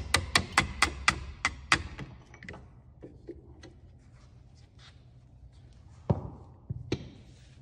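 Hammer tapping the motor housing of a Makita DHS680 cordless circular saw held in a vise, about eight quick sharp blows in under two seconds that knock the rotor out of the housing. Two single knocks follow near the end.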